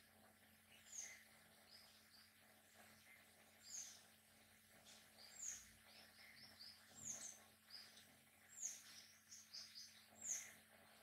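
Faint, high bird chirps, each falling quickly in pitch, repeating every second or so and coming more thickly in the second half, over a faint steady low hum.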